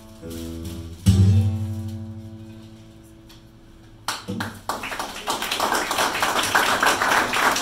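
Classical guitar ending a piece: a loud low final chord about a second in rings out and slowly fades. About four seconds in, audience applause breaks out and grows louder.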